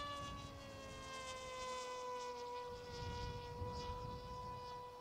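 Electric motor and propeller of an RC flying wing whining steadily in flight, the pitch easing down slightly over the first two seconds or so, then holding. Low wind noise underneath, strongest around three seconds in.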